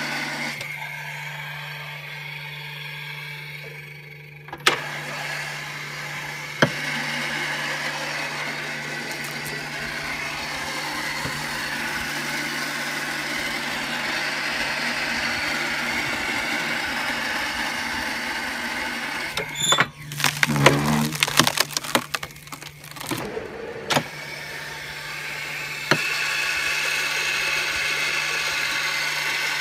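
Pressure washer running steadily as it drives a water-hydraulic log splitter, with a constant hum; after a sharp click about four and a half seconds in it runs louder. Later, for about four seconds, the log cracks and splits with a string of loud snaps.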